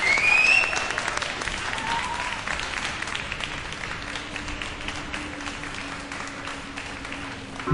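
Audience applause and cheering, with a rising whistle at the very start and a shorter whoop about two seconds in. The clapping slowly thins out, and from about four seconds a steady low tone is held beneath it.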